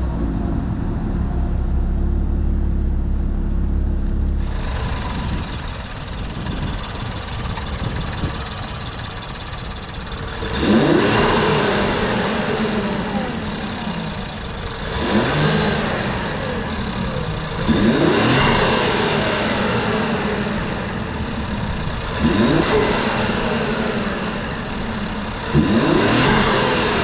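Infiniti Q50 Red Sport 400's twin-turbo V6 with AMS lower downpipes, idling, then blipped in five short throttle revs, each rising and falling quickly, starting about ten seconds in.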